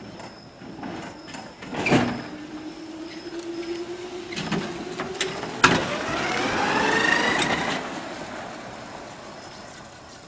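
The electric drive motor of a 1980 Comuta-Car whining as the car pulls away, its pitch rising over about two seconds before fading. Sharp clicks come before it, the loudest just as the rising whine begins.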